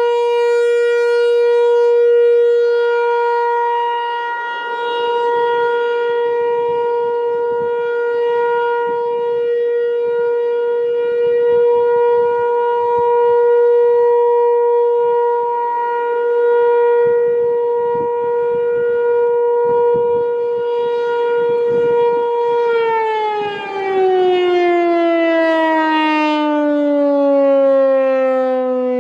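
American Signal T-135 AC/DC mechanical warning siren sounding a loud, steady tone for its monthly test. About 23 seconds in, its pitch starts falling smoothly as the siren winds down.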